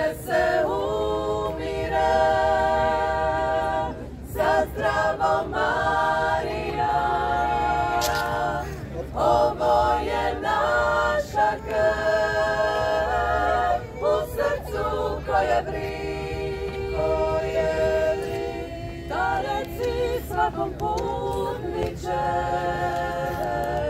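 A women's a cappella ensemble of nine voices singing in close harmony, in long phrases of held chords with short breaks between them.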